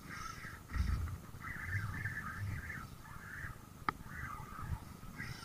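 Shimano FX 2500 spinning reel being cranked to retrieve a hooked needlefish, a squeaky chattering whirr that comes and goes with the turns of the handle. Low buffeting from wind on the microphone sits underneath, and there is one sharp click near four seconds in.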